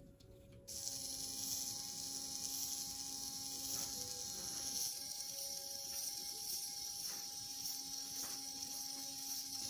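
Miniature DC gear motor with a brass gearbox running steadily, turning a lead screw that drives the plunger, with a constant whine over a high hiss. It starts about a second in and stops abruptly at the end.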